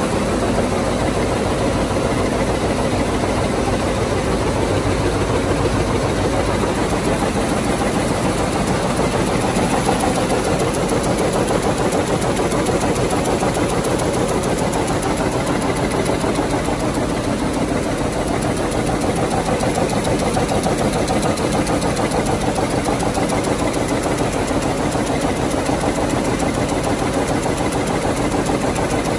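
Vamatex P1001 rapier loom with dobby shedding running, a steady, loud, fast mechanical clatter of the weaving cycle.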